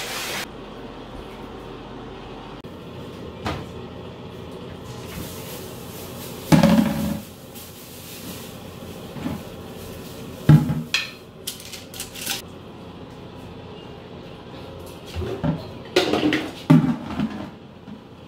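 Scattered knocks and clatter of household things being handled during bathroom cleaning, including a plastic wastebasket and a plastic trash bag. The loudest knocks come about six and ten seconds in, with a short crinkly rustle just after the second and a cluster of clatters near the end.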